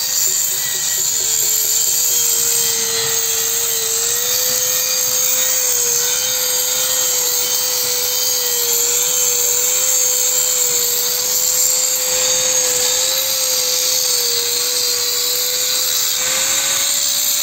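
Handheld electric grinders cutting into carved stone: a steady high whine that wavers slightly in pitch, over a dense grinding hiss.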